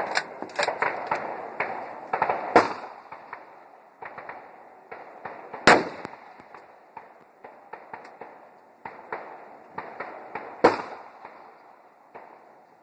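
Three sharp rifle reports from a .243 rifle being sighted in, a few seconds apart, amid many smaller clicks and crackles.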